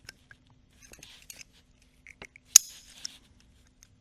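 Light clicks and clinks of small metal carburetor parts and hand tools being handled on a workbench, with one sharper clink about two and a half seconds in.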